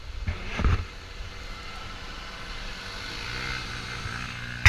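A gaiola (off-road buggy) engine running with a steady low rumble. There is a brief louder swell about half a second in.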